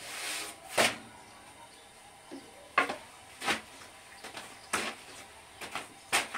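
A string of about six sharp, irregularly spaced knocks and slaps from a thin wooden rolling pin and a sheet of flatbread dough being rolled out and flipped on a round wooden board.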